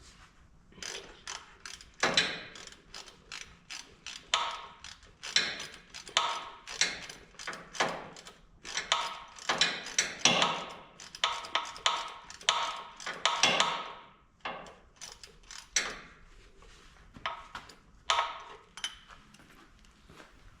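Rapid ratcheting clicks in repeated short bursts, busiest in the first two-thirds and thinning out toward the end.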